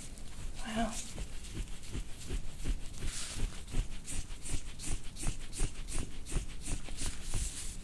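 Soft, fairly even taps and rustling, about three to four a second, from hands working over a patient on a treatment table, with a short low hum from the patient about a second in.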